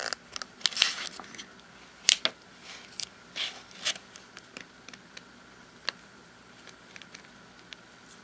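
A small piece of paper rustling and crinkling in the fingers for the first few seconds, then a few faint, scattered small clicks.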